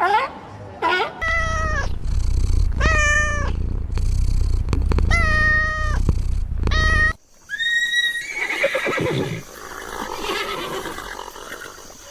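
A farm animal giving a series of drawn-out calls, four or five in a row over a steady low rumble, then a short call and softer, rougher animal sounds.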